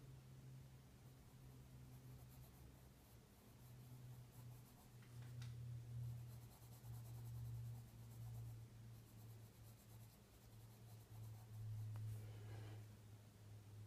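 Faint graphite pencil stippling and scratching on paper in rapid fine ticks, with a brief rub about five seconds in and again near the end, over a steady low hum.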